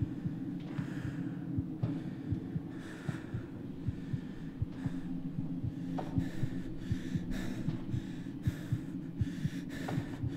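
Heavy, frightened human breathing, with breaths every second or two that come quicker after about six seconds. Underneath runs a steady low drone with irregular soft low thumps.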